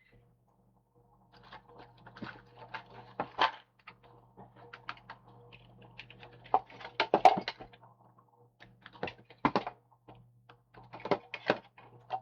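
Computer keyboard keys being typed in irregular clusters, with a few louder clicks, picked up by a desk microphone over a faint steady electrical hum.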